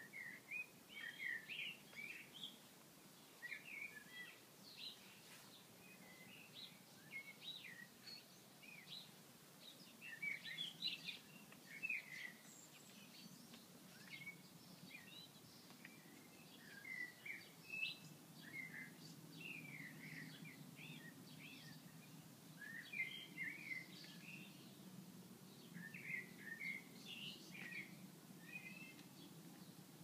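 Small birds singing: short, quick chirping phrases repeated every second or two throughout, fairly faint. A faint low hum comes in about halfway through.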